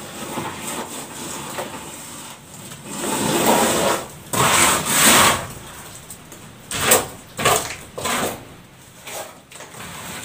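A plastering trowel scraping cement render on a wall: rough scraping strokes, a long stretch a few seconds in, then three shorter strokes.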